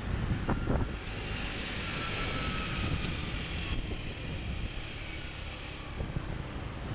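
Scooter engine drone with low wind rumble on the microphone while the scooter is ridden through traffic, with a few light knocks in the first second.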